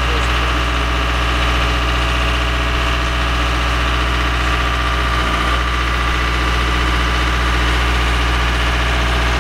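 Yacht's diesel engine running steadily, heard up close inside the engine room.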